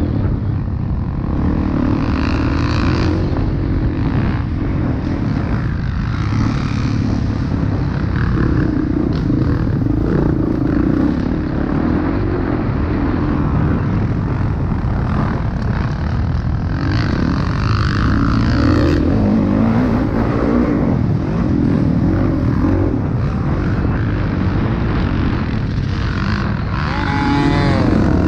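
A motocross bike's engine heard from on board while racing. The pitch rises and falls over and over as the throttle is opened and closed, with a sharp rising rev near the end.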